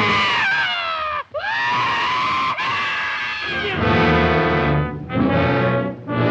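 Orchestral film score led by brass. About a second in, its pitches slide down and then back up, and near the end heavy brass chords come in short phrases.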